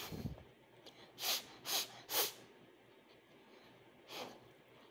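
A person blowing on a forkful of hot instant ramen noodles to cool them: three quick puffs of breath a little over a second in, then one more near the end.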